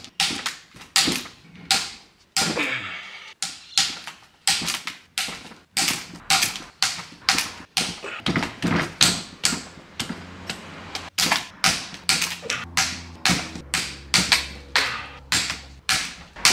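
Hand ratchet clicking in short, even strokes, about two to three sharp clicks a second, as camshaft bearing cap bolts on a cylinder head are cracked loose.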